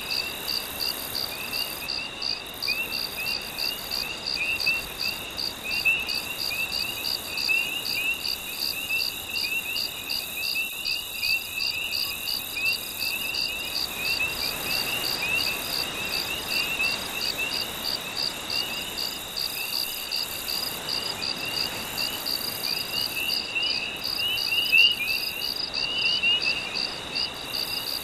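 Night insect chorus: crickets chirping steadily at about two to three chirps a second, with a second layer of short, quick calls from frogs or other insects, over a soft steady wash of gentle waves.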